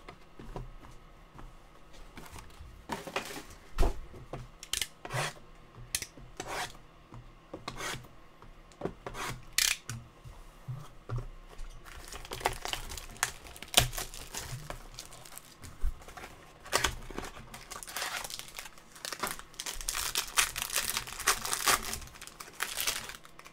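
Wrappers of Topps Museum Collection baseball card packs being torn open and crinkled by hand. There are scattered sharp rips and rustles at first, then denser crinkling from about halfway through.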